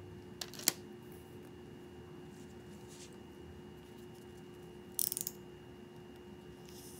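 Light handling on a work table: two sharp clicks less than a second in as a wooden folding ruler is set down, then a quick rattle of small clicks about five seconds in, over a steady faint hum.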